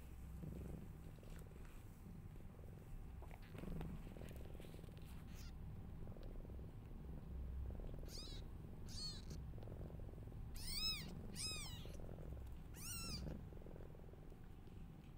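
Steady low purring, with newborn kittens mewing five times in the second half: short, high, thin cries that rise and fall in pitch.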